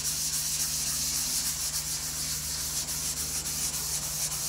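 A linen French-polishing rubber charged with shellac and pumice, rubbed in circles under moderate pressure over wood veneer: a steady gritty scrubbing hiss. This is the grain-filling stage, the pumice cutting the surface back and packing the grain with wood powder, pumice and shellac.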